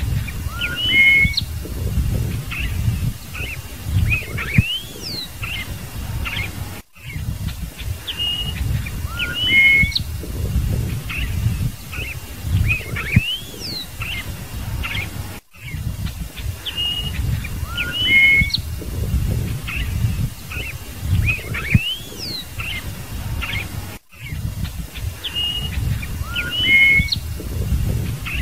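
Scarlet-headed blackbird singing: short phrases of clear whistled notes and quick rising and falling glides over a low rumble. The same song phrase repeats about every eight and a half seconds, with a brief break between repeats.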